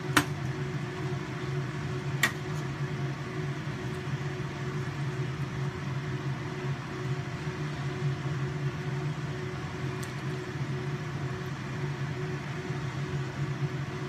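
Kitchen range hood fan running with a steady hum, while a ladle clinks sharply against the steel pot three times: at the start, about two seconds in, and about ten seconds in.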